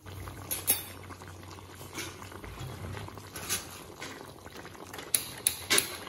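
Chicken bubbling in its own juices and oil in a large metal wok: a steady bubbling hiss with several sharp pops, most of them near the end.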